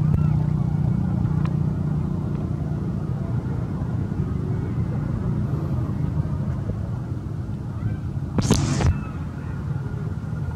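A motor vehicle engine rumbling steadily with a low hum, slowly fading. A brief loud noise cuts in about eight and a half seconds in.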